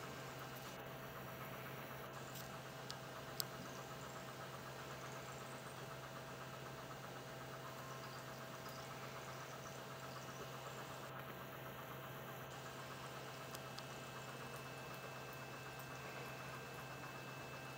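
Steady low electrical or mechanical hum with a few faint thin whining tones above it, and a couple of faint clicks, the clearest about three and a half seconds in.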